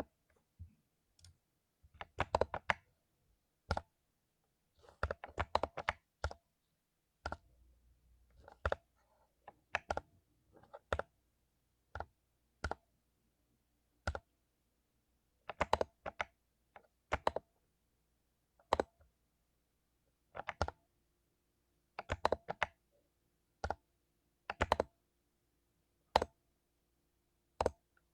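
Mechanical keyboard with lubed Cherry MX Silver linear switches being typed on, in short irregular runs of keystrokes with brief pauses between them.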